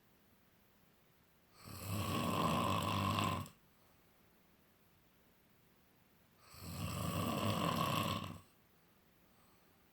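Snoring: two loud snores about five seconds apart, each lasting about two seconds with a low rattling buzz, and quiet breathing pauses between them.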